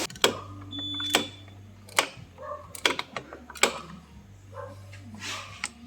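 Sharp clicks and knocks of hand work on drum brake parts, roughly one a second, over a steady low hum, with a short high beep about a second in.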